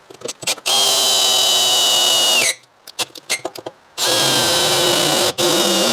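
Power drill drilling a bolt hole, in two runs of about two seconds each with a steady high whine. The first run winds down at its end, and there are a few clicks and knocks before and between the runs.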